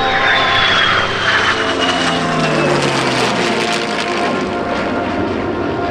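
F-22 Raptor's twin jet engines and P-51 Mustang's Packard-built Merlin V-12 passing in close formation. A loud, steady roar with a high whine that falls in pitch over the first three seconds and a lower engine note that drops soon after, as the aircraft go by.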